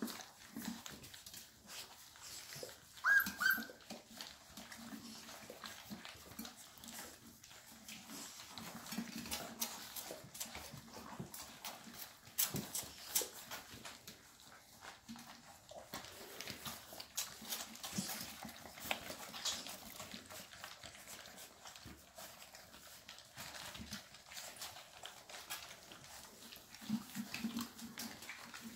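Llewellin setter puppies eating a weaning meal from a stainless steel pan: wet lapping and chewing with frequent light clicks and clinks against the metal. A short high squeak stands out about three seconds in.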